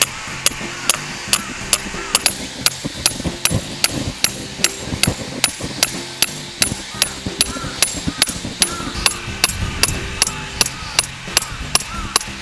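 A small hammer striking the steel ground peg of a lantern stand, driving it into turf. It sounds over background music with a steady, clicking beat.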